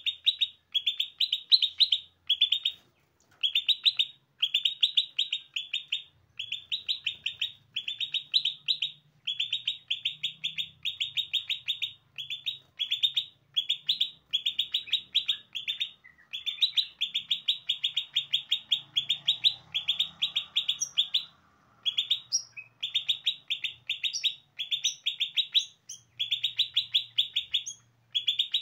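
A caged songbird singing a rapid chattering song: short bursts of quick repeated notes, one after another with brief pauses, with a few higher notes slipped in about two-thirds of the way through.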